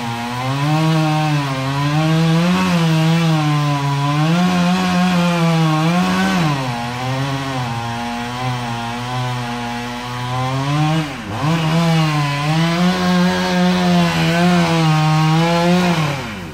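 Chainsaw running at high revs while cutting wood, its pitch wavering as it works through the cut. The revs drop briefly twice, about six and eleven seconds in, then fall away near the end.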